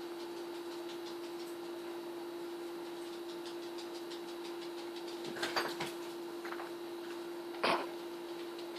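A small dog, a dachshund, sneezing in its sleep: a few short, sharp nasal bursts a little past halfway, then one louder, very short sneeze near the end, over a steady low hum.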